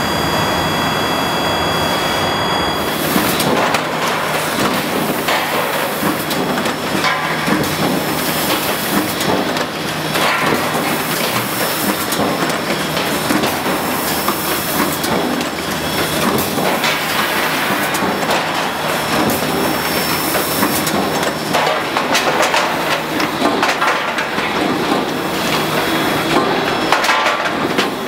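Waterbury 450 four-station progressive die hot former running: continuous dense mechanical clatter with rapid, repeated metallic knocks as hot round bar is cut off, forged into hex nuts and pierced. For the first few seconds a steady high whine from the induction heating coils sits over the clatter.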